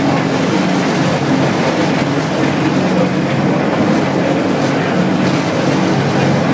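Lift car climbing: a loud, steady mechanical drone with rushing noise.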